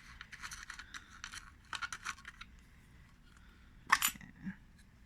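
Handling a 1940s Clix-O-Flex 127 film camera: a run of small clicks and scrapes, then one sharp click about four seconds in, followed by a lighter one, as the camera is opened for loading film.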